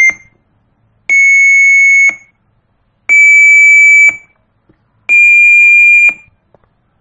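PC speaker beeps made by a Turbo C program's sound() calls in DOSBox: steady pure tones near 2 kHz, each about a second long with a second's silence between. The end of one tone cuts off just after the start, then three more follow, each a little higher in pitch than the last.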